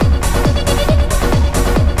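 Electronic dance music in a trance style, with a steady kick drum about twice a second under sustained synth tones.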